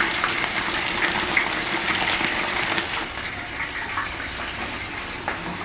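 Battered fish pieces deep-frying in hot oil in a large wok: a dense, steady sizzle with fine crackling, easing a little about three seconds in.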